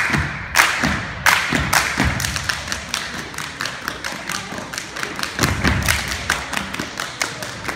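A step team stepping in unison: a quick, continuous rhythm of stomping feet and clapping hands.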